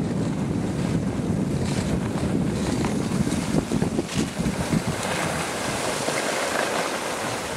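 Wind buffeting the camera microphone while skiing downhill, mixed with the hiss and scrape of skis sliding on packed snow; a few short scraping crackles come in the middle.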